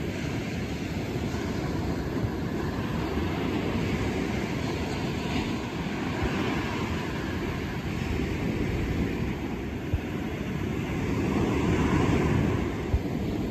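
Ocean surf breaking on the beach: a steady rushing, rumbling wash that gets a little louder near the end.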